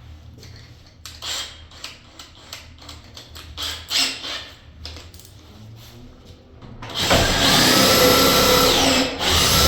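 Scattered clicks and handling knocks, then about seven seconds in an electric drill starts and runs at speed, boring into the door from the other side. It stops for a moment near the end and starts again.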